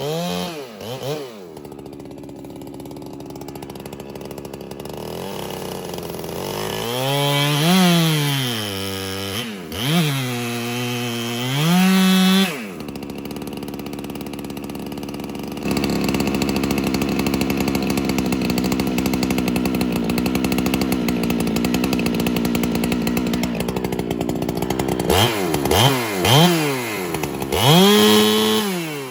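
Holzfforma two-stroke chainsaw being revved in short throttle blips, its pitch swooping up and down. In the middle it is held at a steady high speed for about eight seconds, as when bucking through a firewood round.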